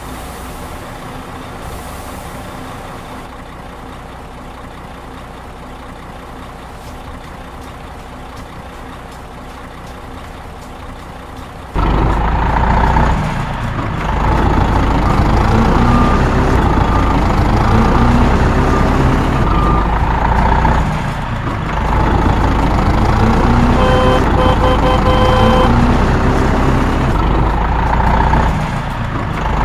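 A truck engine running steadily. About twelve seconds in, a much louder truck engine comes in and revs up in pitch several times, as when pulling away through the gears. Short repeated beeps sound a little past two-thirds of the way through.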